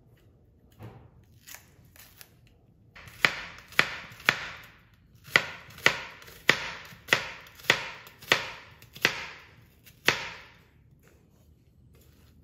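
Knife chopping on a cutting board: a few light taps, then about eleven firm chops at roughly two a second.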